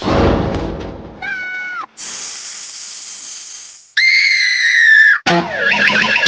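A run of dubbed cartoon sound effects: a low rumble, a short wavering tone, a steady hiss of about two seconds like a snake's hiss, then a high drawn-out cry. A squeaky, wavering cartoon voice comes in near the end.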